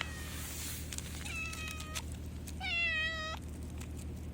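A cat meowing twice, two drawn-out pleading calls, the second one louder. The meows read as a stray cat begging the anglers for food.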